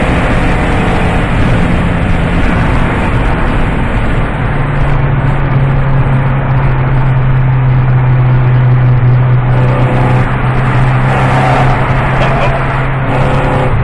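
Ford Focus 2.5 engine running loudly through an aftermarket exhaust box, with a deep rumble. About four seconds in, a steady low drone sets in and holds.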